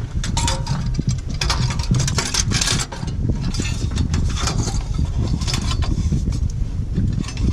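Irregular metal clinks, rattles and scraping as a sheet-metal exhaust heat shield is handled and fitted, over a steady low rumble.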